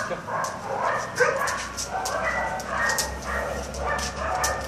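Dog whining and yipping over and over in short pitched cries, with sharp clicks of its claws on the tiled floor as it walks.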